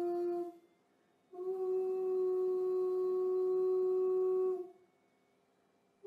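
Steady humming tone from a signal-generator-driven loudspeaker vibrating a sand-covered metal Chladni plate. The tone cuts off about half a second in, comes back a little higher in pitch about a second later and holds for some three seconds, then stops again near the end. Each step up in frequency sets the plate resonating in a new pattern.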